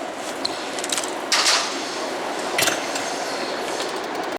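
Steady rumble and rattle of a passing elevated subway train, with a loud sharp clack about a second and a half in and a shorter one a little past the middle.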